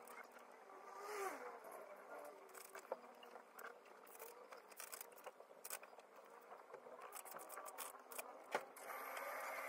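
Faint taps, clicks and paper rustles from handling a thick textbook and typing on a laptop keyboard. A steady hiss comes in near the end.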